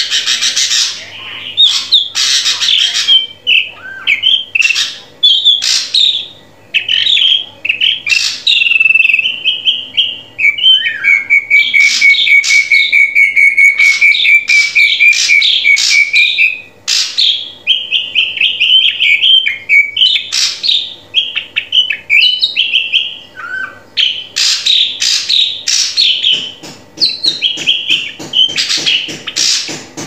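Drongo in full song: a fast, varied run of whistles and chattering notes, with one long steady whistle from about 11 to 16 seconds in.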